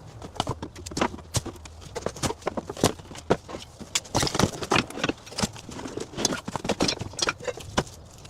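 Irregular rapid knocks and clatter of hard objects being handled and set down, several sharp impacts a second.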